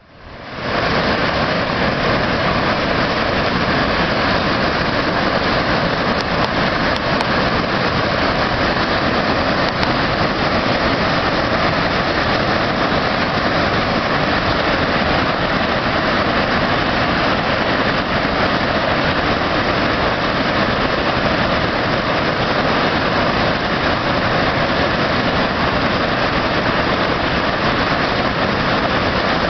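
Waterfall on a mountain river: a loud, steady rush of falling water, fading in over the first second.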